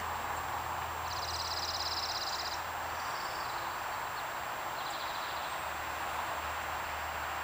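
Forest ambience: a steady outdoor hiss, with a small songbird's fast, high trill about a second in lasting about a second and a half, and a fainter trill about five seconds in.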